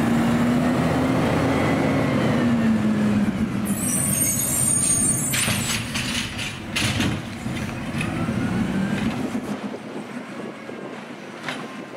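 Automated side-loader garbage truck running, with a high squeal about four seconds in followed by several sharp metallic clanks.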